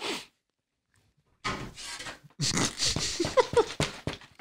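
A man making non-word gagging and groaning noises for the last three seconds or so, after a brief sound at the start and a second of silence: a reaction of disgust to a bad-tasting chicken sandwich.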